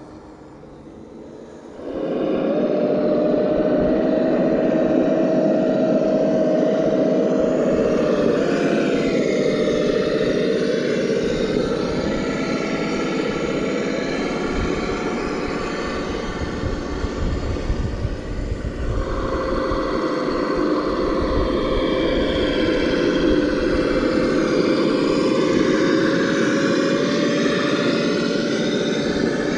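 Traxxas TRX4 RC crawler under way, its Sense Innovations ESS Dual Plus sound unit playing a simulated engine through its speakers. The sound comes in suddenly about two seconds in, holds a fairly steady pitch, eases briefly past the middle and picks up again.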